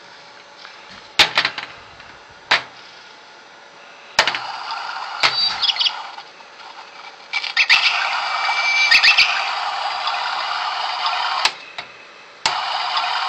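Homemade electronic 'wilderness' box switched on and played through its amplifier. After a few sharp clicks of the controls, a steady hiss sets in with short high chirps; it gets louder as the knob is turned up, then cuts out briefly near the end and comes back when switched on again.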